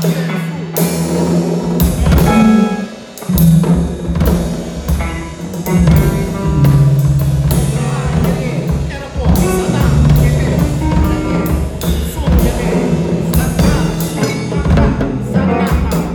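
Live band music: drums and percussion beating steadily over a moving bass line, with higher instrument lines on top.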